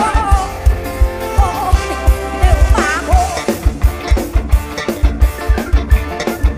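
Loud upbeat dance music through a concert PA: a fast, steady drum beat under a melody that slides up and down in pitch.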